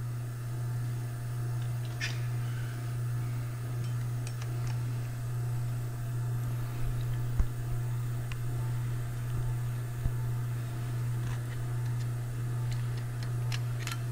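A steady low hum, with a few faint metal clicks and taps scattered through it as small parts are handled inside a final drive gearbox housing.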